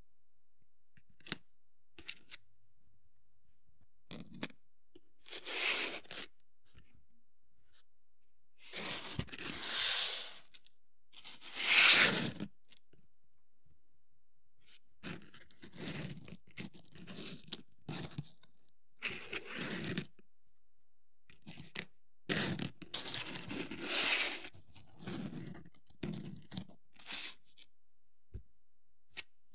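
Hobby work on plastic miniature kit parts: irregular scraping or rustling strokes, each about a second long, between sharp single clicks, with no steady rhythm.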